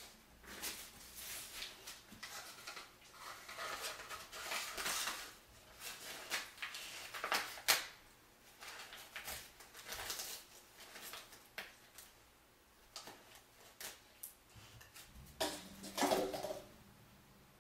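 Dog rummaging through garbage strewn across a tile floor: paper and wrappers rustling and crinkling, with scattered clicks and knocks from cups and litter being pushed about. The loudest is a sharp knock a little before halfway, and a short squeaky sound comes near the end.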